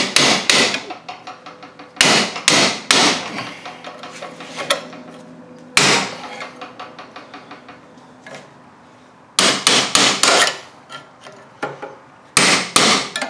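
Hammer blows on a long steel punch set against a rusted electric PTO clutch clamped in a steel bench vise, coming in short runs of several quick strikes with a single blow in between, the metal ringing briefly after them. The tapping is meant to shock the seized, rusted pivot levers loose.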